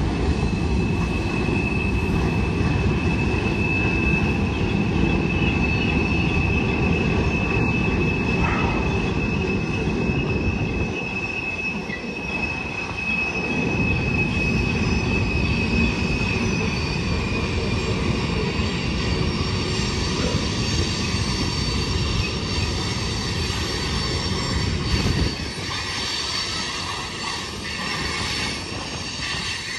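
Freight train rolling through a curve: a dense low rumble of wheels on rail, with a steady high-pitched flange squeal that fades out about two-thirds of the way through.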